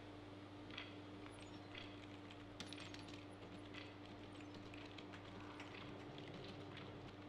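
Faint ticking of a wall clock about once a second, then quiet clicking of computer keyboard keys, over a steady low hum.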